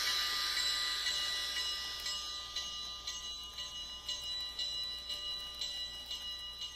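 Model Southern Pacific 4449 passenger train running past on the layout: a steady metallic ringing that fades as the locomotive moves away, with a light clicking at about two a second as the passenger cars roll by.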